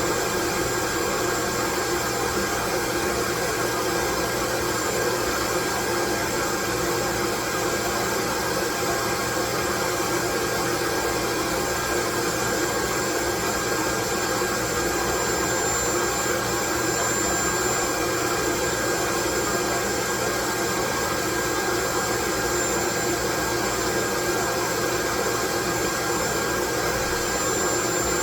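Loud, unchanging white noise with a faint steady high whine running through it, much like a hair dryer or vacuum motor blowing.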